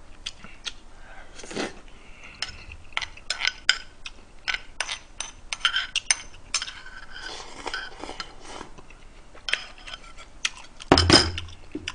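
Metal spoon clinking and scraping against a ceramic bowl while eating, as irregular short clicks, with a louder knock near the end.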